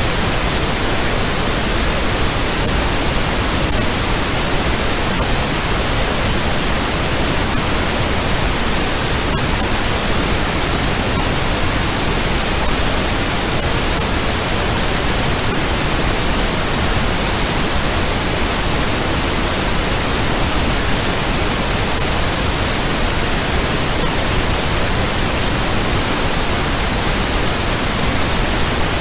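Steady pink-noise hiss, even from low rumble to high hiss and unchanging throughout: the carrier of a 'morphic field' audio track.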